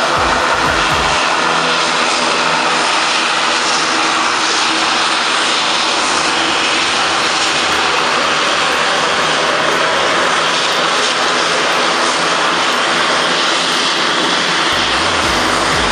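BAe ATP twin-turboprop airliner taxiing, its engines and six-bladed propellers running steadily: a loud, even drone with a hiss.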